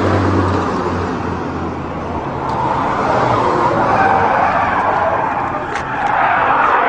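A car drifting at high speed: engine running hard and tyres skidding, with a wavering pitch that rises and falls in the second half.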